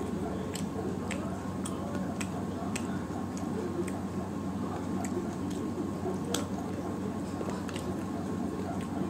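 A person eating chicken feet and curried rice by hand: wet chewing and lip smacking, with irregular sharp clicks, over a steady low hum.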